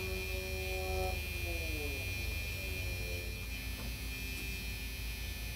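School bus's dashboard warning buzzer sounding with the key on: a steady droning tone that slides down in pitch about a second in and settles into a fainter, lower tone.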